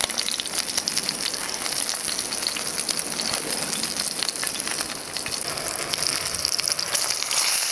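Chicken drumsticks frying in oil in a cast iron skillet: a steady sizzle thick with fine spitting and popping.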